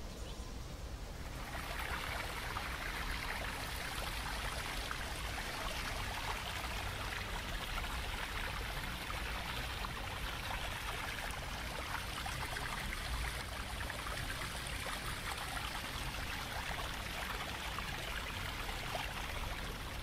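A stream running over rocks: a steady rushing of water that fades in over the first two seconds.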